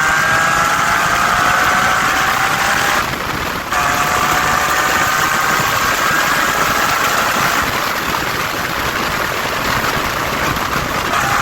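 Mitsubishi FTO GPvR's 2.0-litre 6A12 MIVEC V6 under hard acceleration, its note rising in pitch. About three seconds in it breaks off briefly for a gear change, then climbs again from a lower pitch, over a steady rush of road and wind noise.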